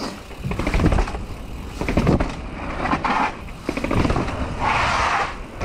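Mountain bike riding fast down a wet paved alley: a constant wind rumble on the microphone, tyre hiss on the wet surface that swells twice, and knocks and rattles from the bike over bumps.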